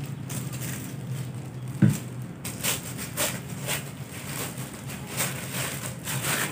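Thin disposable plastic glove crinkling as it is handled: a run of short, irregular rustles, after a single thump about two seconds in. A steady low hum underneath.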